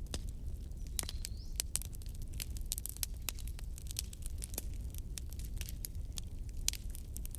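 Wood fire burning in a fireplace, crackling with many irregular sharp snaps and pops over a low steady rumble of the flames, and a brief high rising whistle about a second in.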